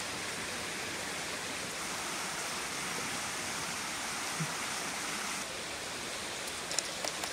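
Steady rush of a flowing stream, with a few faint clicks near the end.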